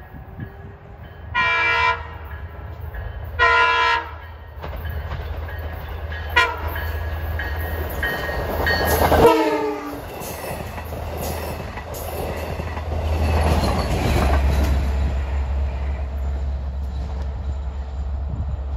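A Long Island Rail Road C3 bi-level cab car sounds its harsh, discordant horn in two short blasts, then a short toot, then a blast whose pitch drops as the cab passes. The double-deck coaches then roll by with wheel clatter on the rails over the train's steady low engine hum.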